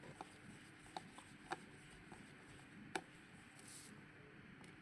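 Small screwdriver working the tiny screws of a Samsung Galaxy On5's plastic housing: a few faint, sharp clicks and light scrapes, about five in all, over quiet room tone.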